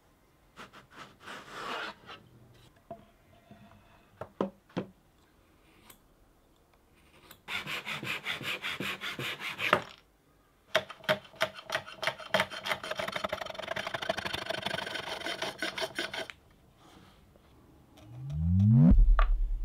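Hand tools working a small mahogany workpiece: a few short rubs, then two long runs of fast, repeated rasping strokes on the wood. Near the end, a loud low whoosh rises in pitch and dies away.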